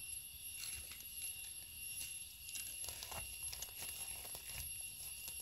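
Faint forest ambience: a steady, high-pitched insect drone, with scattered soft clicks and rustles from someone moving through leaf litter and picking mushrooms.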